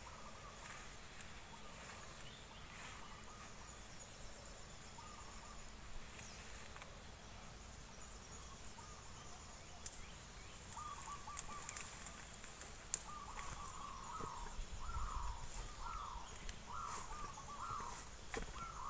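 Steady insect buzz. From about halfway through, a bird gives a run of short harsh calls, roughly one a second. Scattered sharp snaps and rustles of twigs and leaves come from someone pushing through brush under a bundle of cut fodder.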